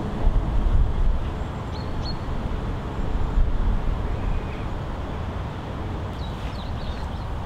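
Outdoor wind noise on the microphone, a low uneven rushing, with a few short high bird chirps about two seconds in and again near the end.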